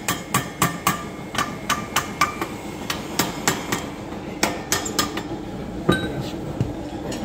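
Hammer blows on metal, about two to three a second with a short ringing clang after each, thinning out near the end: a bearing cup being driven into its seat in a tractor transmission housing. A steady hum runs underneath and grows in the second half, likely the heat gun's fan.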